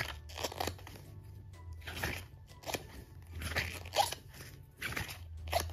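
Pages of a small glossy photobook being turned one after another, a string of short crisp paper rustles and flicks close to the microphone, over quiet background music.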